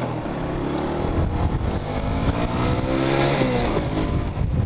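125 cc motorcycle engine accelerating while riding, its pitch rising for about two seconds, then falling away a little after three seconds in.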